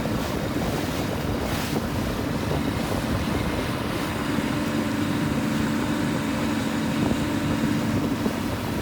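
Water rushing past a boat under way, with wind buffeting the microphone and a steady low hum.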